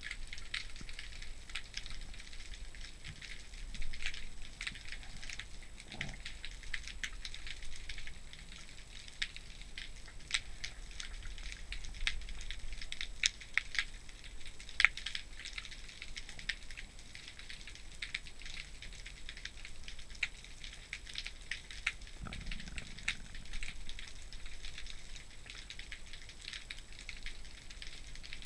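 Underwater crackling over a rocky, weed-covered seabed: a dense, irregular scatter of small sharp clicks, a few louder than the rest, typical of snapping shrimp.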